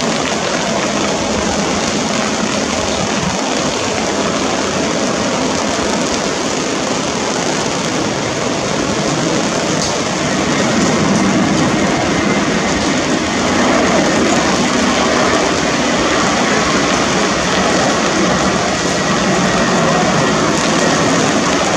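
Airbus A321-200 jet airliner on final approach with its landing gear down, the engines making a steady rushing noise that grows louder about ten seconds in as the aircraft comes closer.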